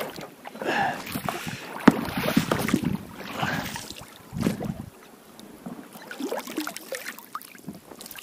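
Irregular knocks, rustles and water splashes of someone moving about in an inflatable boat, busiest in the first half, with one sharp click about two seconds in.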